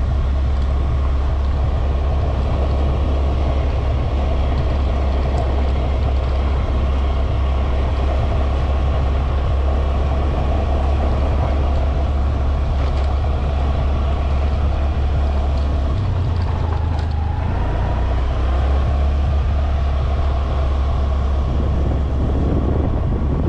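Steady engine and road noise of a moving vehicle, heard from on board: a loud low drone that holds even throughout. A faint rising tone briefly cuts through about two-thirds of the way in.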